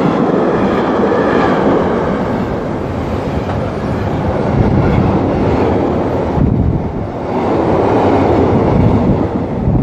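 Intermodal freight train passing through at speed close by: a loud, steady noise of wagon wheels on the rails. The noise briefly drops about seven seconds in.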